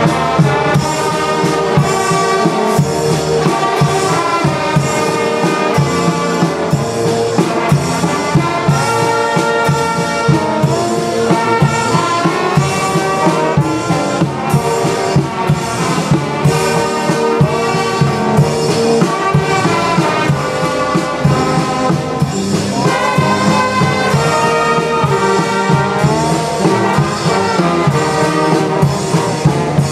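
Brass band playing a lively tune, trumpets and trombones over a steady beat.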